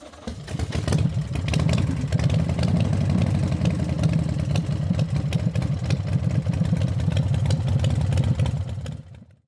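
Yamaha Virago 750's air-cooled V-twin engine running steadily. It builds up over the first second and fades out near the end.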